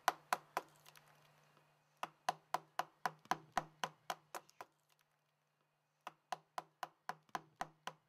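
Quiet rhythmic percussion tapping, sharp clicks at about four a second in short runs with pauses of a second or more between them, over a faint low steady hum.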